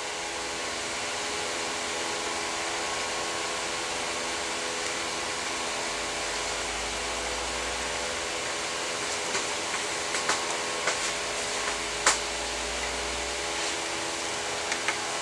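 Steady hum of a small electric motor with a whirring noise, and a few light clicks and taps in the second half as Allen wrenches are handled.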